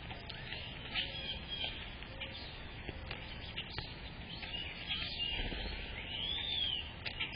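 Birds chirping: a run of short, high chirps and, near the end, one arched call that rises and falls, over a steady crackly background with a few light taps.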